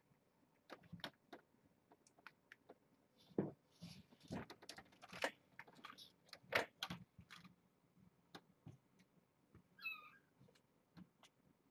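Scattered soft knocks and scuffles of kittens playing and scrambling about, busiest in the first half, then a single short kitten mew about ten seconds in.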